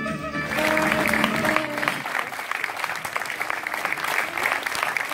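Audience applauding, with the end of a music track still playing through the first second or two.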